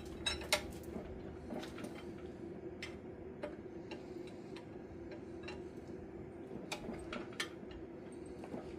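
Ratchet wrench clicking in short, irregular runs as the wheel-hub bolts on a tractor axle are cranked down, over a steady low hum.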